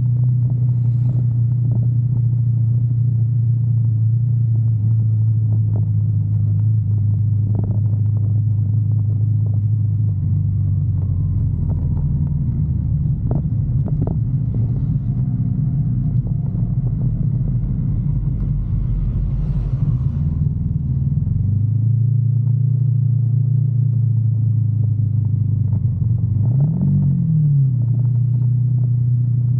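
Sport bike engine running at a steady cruise, heard from the rider's seat, its note dropping lower through the middle stretch. Near the end the pitch rises and falls in one quick blip.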